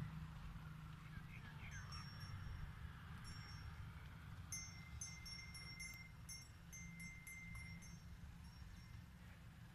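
Small metal bells jingling lightly in a run of short, high tinkling strokes over several seconds, with a thin steady whistle-like tone in the middle, all over a low rumble.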